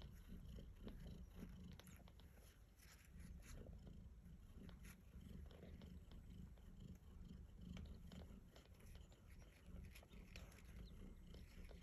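Faint, steady purring of a mother cat nursing her newborn kittens, with scattered soft clicks over it.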